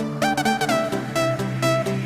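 Electronic dance music: an instrumental synth lead playing a melody with a short upward pitch slide, over a steady bass pulse.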